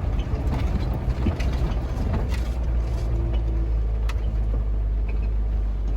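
1987 Toyota Hiace van's engine labouring up a steep hill, a steady low drone with a few sharp clicks.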